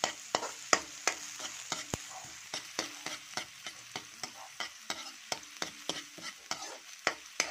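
Chopped onion and garlic sizzling in a little hot oil as they are sautéed, with a metal spatula scraping and clacking against the pan about three times a second as they are stirred.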